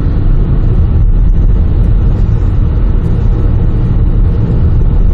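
A 2018 Kia K7 2.4 gasoline sedan driving, heard from inside the cabin: a steady low rumble of road and engine noise.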